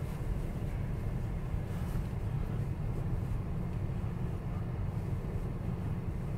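Steady low rumble of a car's engine and tyres heard from inside the cabin while the car creeps along slowly in a line of traffic.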